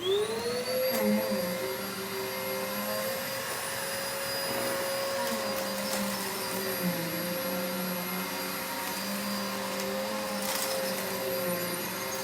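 Vacuum cleaner switched on, its motor spinning up in a rising whine within the first half second, then running at a steady pitch with lower tones wavering underneath.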